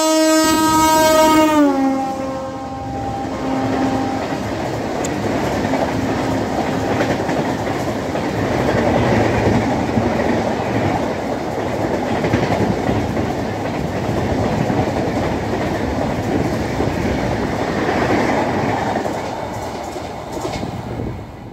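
Electric locomotive's horn sounding as the train passes at speed, its pitch dropping sharply about two seconds in and fading away. Then the steady rolling noise and clickety-clack of LHB passenger coaches running past close by, easing off near the end.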